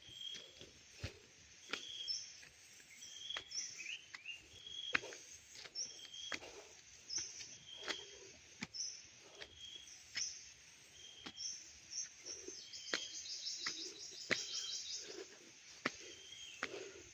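Birds chirping, a short high note repeated about once a second, with a rapid high trill about three-quarters of the way through. Under them run steady footsteps on a path, dull thuds with small sharp clicks.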